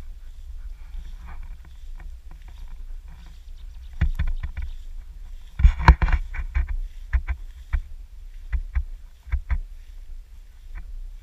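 Tall meadow grass swishing and rustling against someone walking through it. The sweeps come irregularly, loudest and thickest about halfway through, over a low steady rumble on the microphone.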